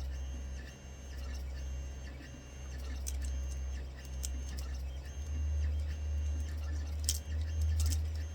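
A few sharp snaps and clicks as cured resin supports are broken off a 3D-printed figure by hand, over a steady low hum and a faint high tone that steps up and down.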